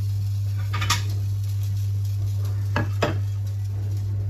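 Spoon stirring thick barbecue sauce in a plastic measuring jug: a short scraping about a second in, then two quick knocks of the spoon against the jug near the end. A steady low hum runs underneath.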